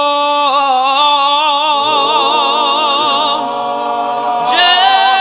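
Vocal group singing a long held note with wide vibrato, a lower harmony part coming in about two seconds in; the voices move to new notes near the end.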